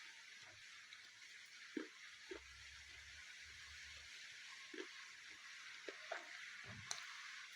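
A piece of dry chak-chak eating clay bitten and crunched between the teeth: about half a dozen short, soft crunches over a steady hiss.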